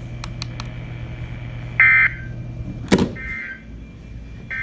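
NOAA Weather Radio SAME end-of-message data bursts: three short, buzzy digital chirps about a second apart, the first the loudest, which close the flash flood warning. A sharp thump comes just before the second burst, with faint clicks near the start and a steady low hum underneath.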